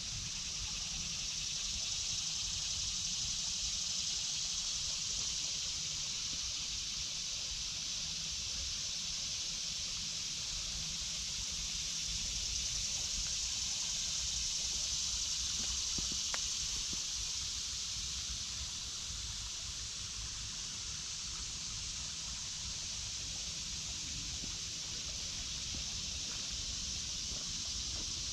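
Steady high-pitched drone of a cicada chorus (what the uploader calls locusts) filling the woods, with a low rumble underneath.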